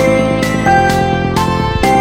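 Instrumental background music with a steady beat and a melody of held notes that change about every half second.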